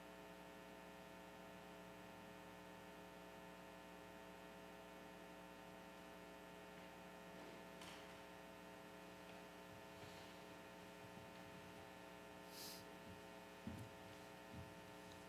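Near silence: a steady electrical mains hum from the sound system, with a few faint knocks near the end.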